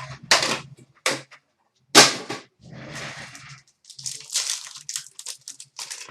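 Upper Deck hockey card packs being handled and opened: a foil wrapper crinkling and tearing and cards rustling, in irregular crackly bursts, the sharpest about two seconds in.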